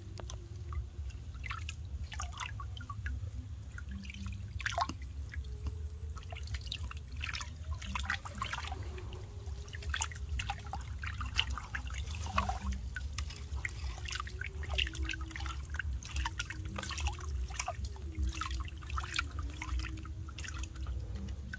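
Water being scooped by hand and splashed over a baby monkey in a basin, with irregular small splashes and drips trickling back into the water, over a steady low rumble.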